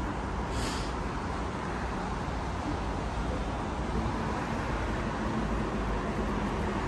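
Steady outdoor city background: a low, even rumble of distant traffic.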